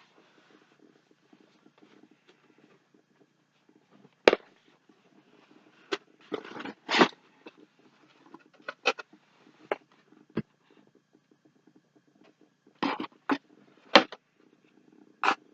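Cardboard subscription box being opened and its packaging handled: a string of short knocks, rips and rustles at irregular intervals, with a few longer scraping rustles.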